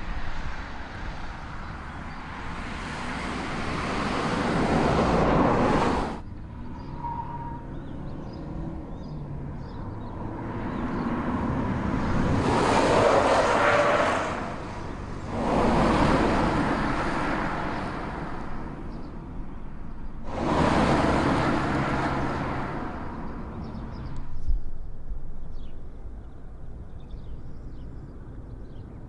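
Camouflaged Mazda SKYACTIV prototype cars passing at speed on a test track, four times. Engine and tyre noise swells up and dies away on each pass, and the first and last passes cut off suddenly. A short sharp knock follows the last pass.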